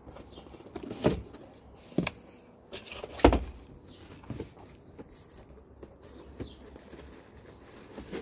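Handling noises from unpacking a cardboard box: a few sharp knocks and thumps, the loudest about three seconds in, with light rustling of the plastic-wrapped parts inside.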